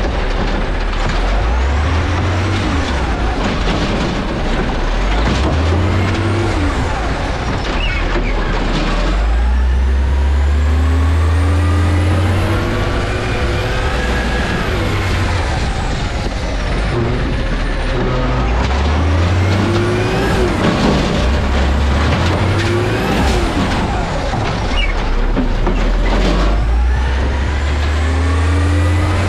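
Autocar garbage truck's engine revving up repeatedly as the truck pulls away and dropping back as it slows, its pitch climbing in steps through the gear changes, with occasional hisses from the air brakes.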